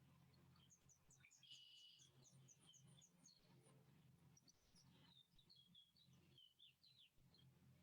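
Faint birdsong: a quick series of high chirps in the first half, then lower chirping notes later, over a faint steady low hum.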